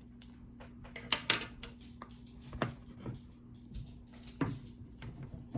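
A few short knocks and clatters of kitchen utensils and containers being handled during mixing-bowl prep, over a steady low hum.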